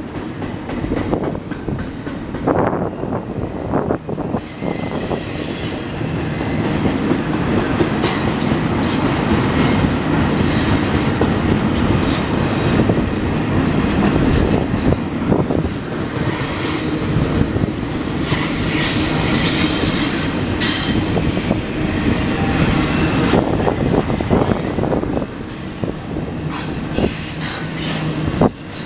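Double-stack intermodal well cars of a freight train rolling past: a steady rumble of steel wheels on rail with rapid clicks over the rail joints, and now and then a high-pitched wheel squeal.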